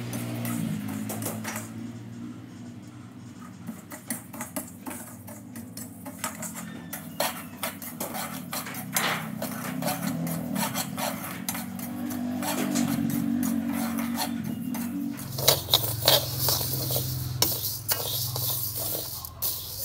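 Metal spatula scraping and clicking against a wok while stirring dry-roasting seeds, in irregular strokes that grow louder and more frequent in the last few seconds.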